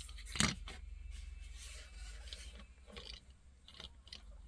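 Small die-cast model cars being handled and rolled on a surface: a sharp click about half a second in, a stretch of scratchy rubbing, then a few light clicks near the end.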